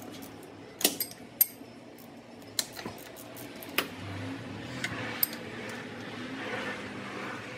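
Metal hand tools clinking against each other and against the engine: a ratchet and socket being handled, with about eight sharp, scattered clinks, the loudest two about a second in.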